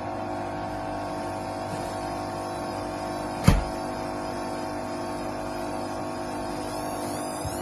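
Hoover 8 kg washing machine running with a steady motor hum and a high whine that wavers slightly in pitch as the drum turns. One loud knock comes about three and a half seconds in, fitting the drum of a very unbalanced load striking the cabinet.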